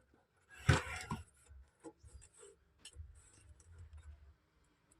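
Handling noise of wires being unplugged and moved: a knock a little under a second in, then light clicks and rubbing.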